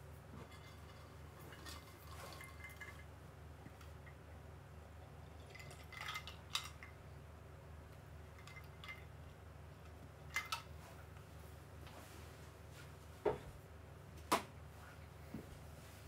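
Quiet room tone with a steady low hum, broken by a handful of sharp light clicks and clinks of hard objects being handled. Two come about six seconds in, two about ten seconds in, and the two loudest come near the end.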